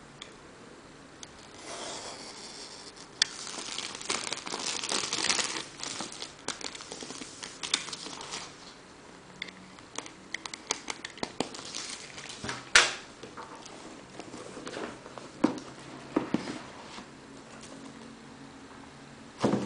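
Clear plastic shrink-wrap on a cardboard laptop box being slit with a box cutter and pulled off, crinkling and tearing, with scattered clicks and taps against the box. A sharp snap comes about two-thirds through, and a knock at the very end.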